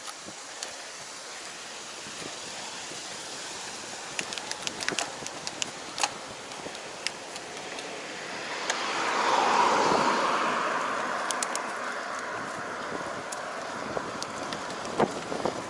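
A car passes, its noise swelling to a peak about nine and a half seconds in with a falling pitch, then fading away. Under it runs steady road and wind noise with scattered sharp ticks.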